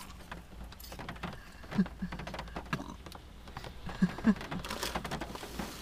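Spoons clinking and scraping in steel mugs while cereal is eaten, small scattered clicks and taps with a few louder ones about two and four seconds in, over soft rain patter on the car.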